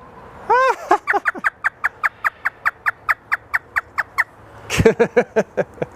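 African grey parrot doing an imitated hysterical laugh: one rising-and-falling 'ha', then a fast cackling run of about six short falling notes a second for some three seconds, followed near the end by a short voice-like sound.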